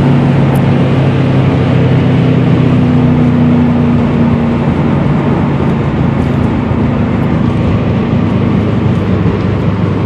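Inside the cabin of a stage 2 tuned 2013 Subaru WRX STI at about 130 mph: its turbocharged 2.5-litre flat-four hums steadily with falling revs, and the engine note drops away about halfway through as the car coasts. Loud wind and road noise carry on.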